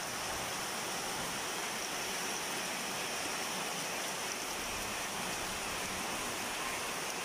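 Heavy rain pouring steadily onto garden trees and a tapioca patch, an even hiss.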